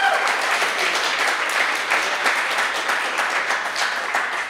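Audience applauding, a dense run of many hands clapping that slowly fades toward the end.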